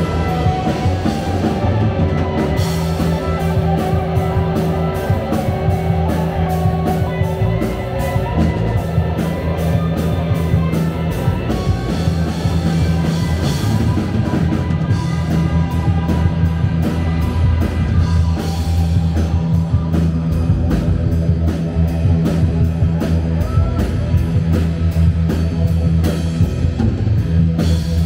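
Live rock band playing loud: electric guitar, electric bass, a drum kit keeping a steady beat, and keyboards.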